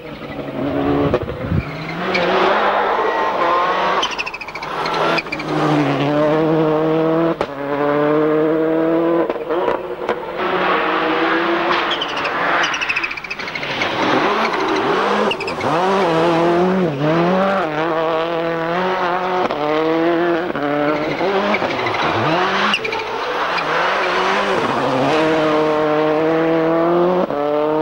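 Rally car engine sound revving up and dropping back again and again, like a car accelerating hard through its gears, with short lifts between the runs.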